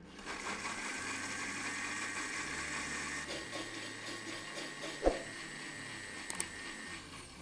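Countertop blender running, grinding walnuts and water into a smooth milk: a steady motor whir with a thin high whine. A single knock comes about five seconds in, and the motor stops near the end.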